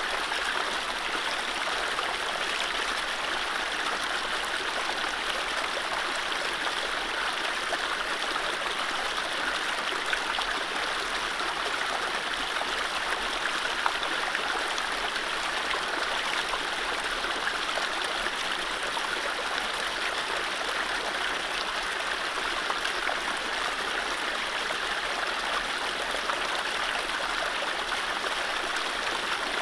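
Mountain stream running over low rapids: a steady rushing of water with small splashes and gurgles throughout.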